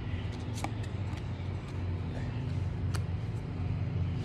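Pokémon trading cards being slid and flipped through by hand, giving a few light clicks, over a steady low room hum.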